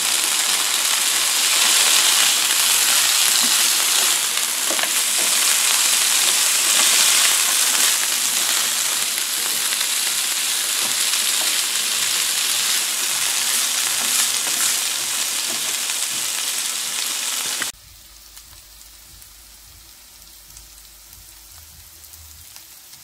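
Frozen sweet corn kernels sizzling loudly in a hot pan as a spatula stirs and pushes them around. The sizzle cuts off suddenly about 18 seconds in, leaving only a faint low hum.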